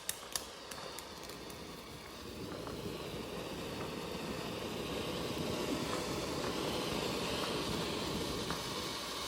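Faint, steady outdoor background noise that slowly grows louder, with a few faint pops in the first second.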